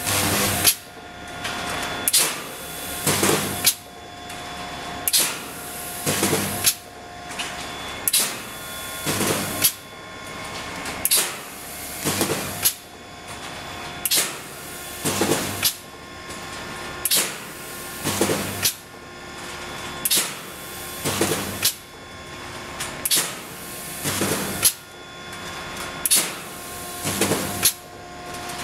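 Automatic double wire mesh welding machine cycling: a sharp clank about every two seconds as the electrodes weld a cross wire and the mesh steps forward, over a steady machine hum.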